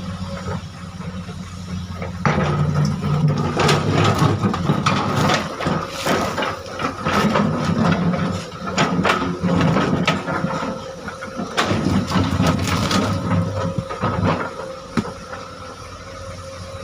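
Excavator's diesel engine running steadily, with boulders clattering and scraping against steel from about two seconds in until near the end as the rocks are worked and loaded, then just the engine again.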